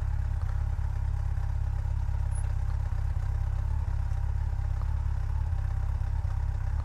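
Motorcycle engine idling steadily at a standstill.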